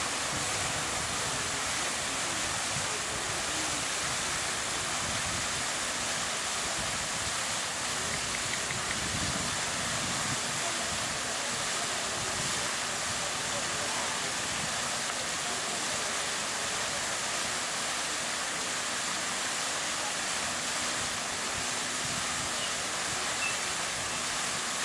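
Fountain water splashing steadily: a tall central jet and smaller jets falling back into the basin, with water spilling over the rim.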